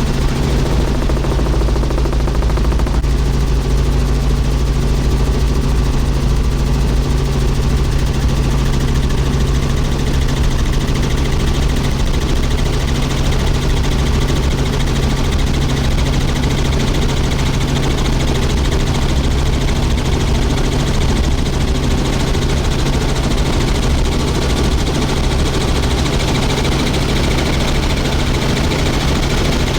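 Helicopter in steady flight, heard on board: a continuous drone of engine and rotor with a fast, even chop from the blades.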